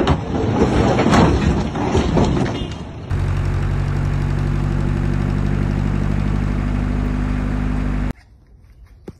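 Rough, uneven vehicle noise with scattered knocks for about three seconds, then a truck engine idling in a steady, even drone for about five seconds that cuts off suddenly.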